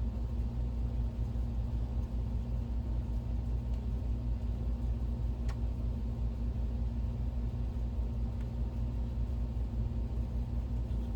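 Optoma GT1080 DLP projector running with its cooling fans on, a steady hum, with one faint click about five and a half seconds in.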